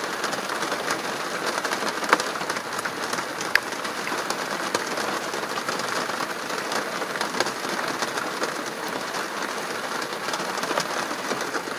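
Heavy rain pouring down: a steady dense hiss of rain with many small sharp drop ticks, two louder drops at about two and three and a half seconds in.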